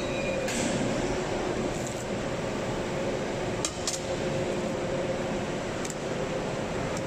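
5000-ton hydraulic forging press running, a steady machine hum with two steady tones, with a few faint light clicks scattered through it.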